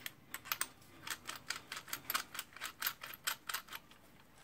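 A rapid, irregular run of small sharp clicks, about five or six a second, from parts being worked by hand during reassembly. The clicks stop shortly before the end.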